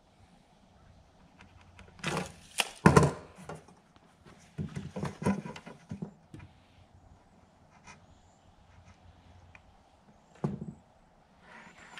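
A long metal straightedge knocking and clattering against a plywood sheet as it is moved and repositioned. There is a cluster of knocks about two to three seconds in, the loudest near three seconds, smaller knocks around five seconds, and a single knock near the end.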